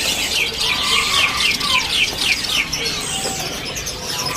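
Caged songbirds calling together, led by a fast run of repeated high, downward-sweeping chirps, with other whistled bird notes mixed in.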